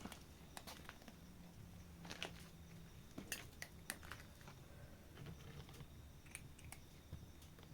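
A cat eating, its chewing heard as faint, irregular clicks.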